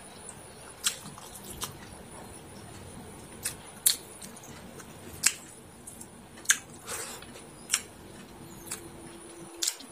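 A person chewing a mouthful of chicken biryani, with about ten short, sharp lip smacks and mouth clicks spaced irregularly.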